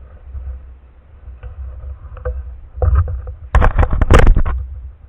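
Steady low rumble with scattered clicks, then a quick cluster of loud sharp knocks and clatter about three and a half seconds in, lasting about a second.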